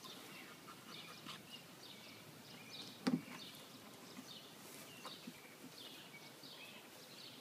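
Faint outdoor birdsong, many short chirps from small birds throughout, with a single short knock about three seconds in.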